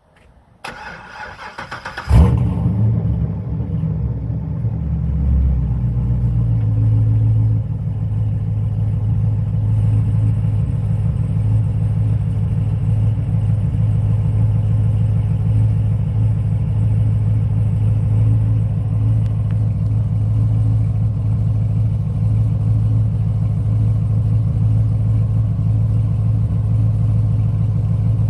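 Cold start of the 6.2-litre LS3 V8 in a 2005 C6 Chevrolet Corvette: the starter cranks for about a second and a half, the engine catches with a loud burst about two seconds in, then settles into a steady, loud idle that eases slightly after about seven seconds.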